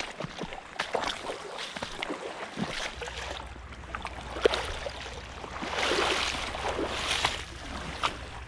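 Wader-clad legs wading through shallow, rocky water, splashing and sloshing with each step, with small sharp knocks along the way and louder splashes about six and seven seconds in.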